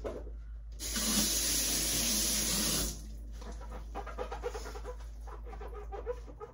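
Kitchen sink faucet turned on and running for about two seconds, starting about a second in, then shut off sharply. Light clatter of things being handled on the counter follows.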